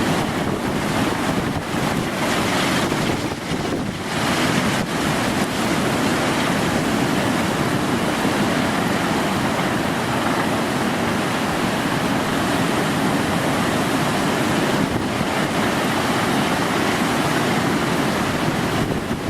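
Hurricane-force wind and breaking surf: a steady, loud rush of noise, with wind buffeting the microphone.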